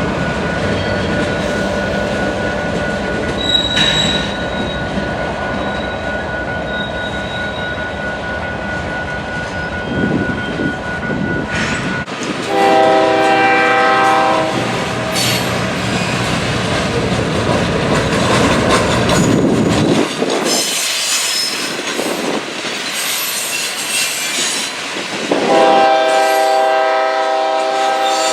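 Diesel freight locomotive's air horn sounding two long blasts, the first about halfway through and the second near the end, over the rumble and wheel noise of a passing freight train.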